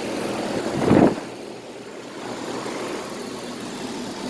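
Steady mechanical hum of a running outdoor air-conditioner condenser unit, with a brief louder sound about a second in.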